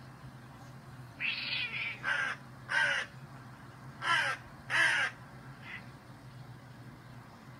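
Crow cawing: five harsh caws in about four seconds, then a faint sixth, played back from a video on a computer.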